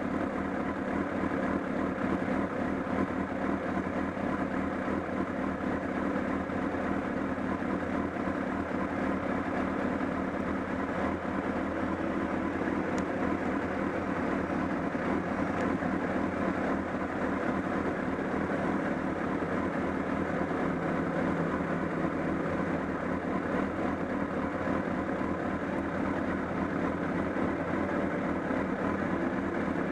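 Honda CBR1000RR inline-four engine running steadily at idle with a fast, even pulsing clatter. The clatter is a flapping noise from near the engine that the owner reports has grown stronger, along with a loss of torque.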